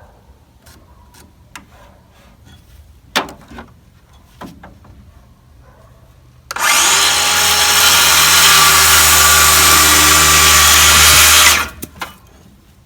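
Power saw cutting through a wooden board to trim it to length, one steady run of about five seconds that stops abruptly, after a few light knocks of the board being handled.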